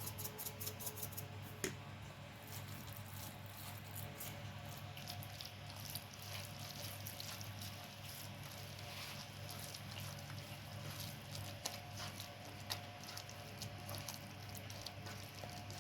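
Soft wet squishing and scattered light clicks of raw food being handled by hand, over a steady low hum.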